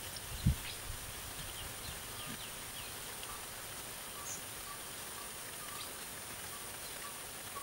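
Outdoor ambience: a steady high-pitched insect whine with scattered short chirps throughout, and one brief low thump about half a second in.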